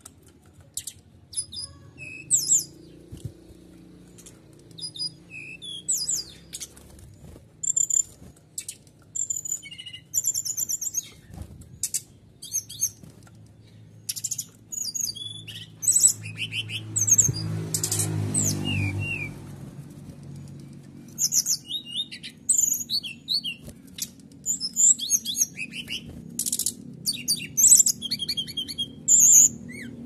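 Caged songbird singing in quick bursts of high-pitched chirps and rapid trills, with canary-like phrases repeating throughout. About halfway through, a short low rumble of background noise rises under the song.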